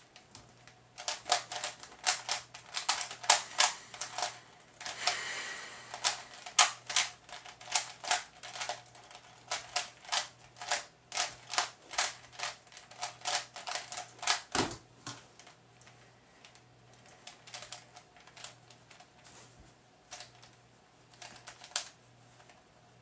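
A plastic Type A 3x3 speedcube being turned quickly by hand between solves: a rapid run of sharp clicking turns. About fifteen seconds in there is one heavier thump, and after it only a few faint, scattered clicks.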